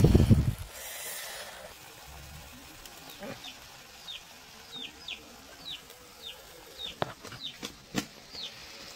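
A loud brief knock and rustle at the very start. Then a bird chirps over and over, short falling chirps about twice a second, with a couple of sharp clicks near the end.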